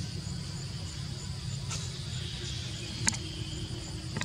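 Insects chirping in a steady high rhythm, about two to three pulses a second, over a low steady rumble, with one sharp click about three seconds in.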